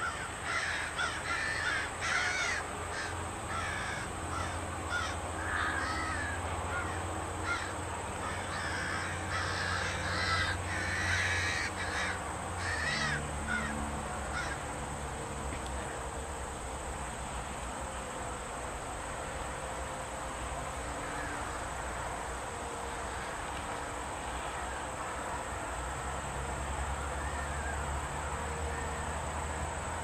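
Several American crows cawing repeatedly while mobbing a red-tailed hawk. The calls come thick in the first half and thin out after about halfway.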